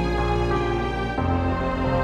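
Background music of held chords, moving to a new chord with a deeper bass note about a second in.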